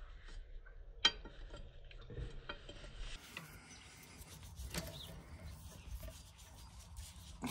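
Faint scraping and small metallic clicks as a gloved hand works a brake rod onto its linkage under an Allis-Chalmers WD45 tractor, with one sharper click about a second in.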